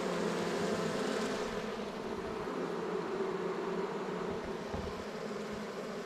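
A newly hived honey bee swarm roaring inside the hive: a steady hum of many beating wings.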